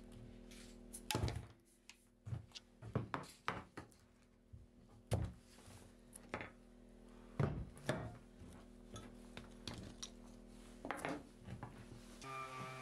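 Rotten wooden boat timber and loose nails being broken apart and picked through by hand on a concrete floor: irregular knocks, cracks and small clinks, over a faint steady hum. A louder steady hum starts just before the end.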